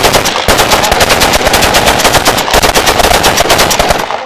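Celebratory automatic gunfire: long bursts of rapid shots, one hard on the next, stopping shortly before the end.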